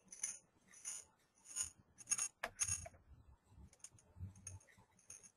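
Faint, irregular clicking and tapping of a computer keyboard and mouse, about two short clicks a second.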